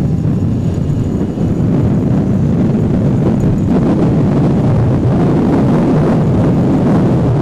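Steady wind noise on the microphone of a moving moped, over the moped running at cruising speed.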